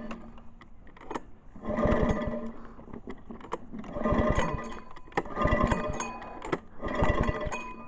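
Recoil-start rope on a cheap Harbor Freight small engine being yanked about four times in a row, each pull a short whirring turn-over of the engine. This is a cold start, and the engine does not catch; the owner later finds he had killed it with the throttle.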